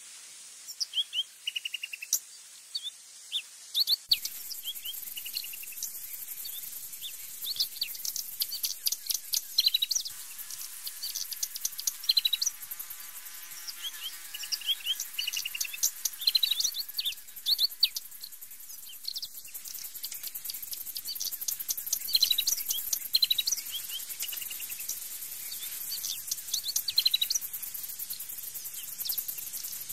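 Birds chirping: many short, high, mostly falling peeps in quick runs, over a steady high insect hiss.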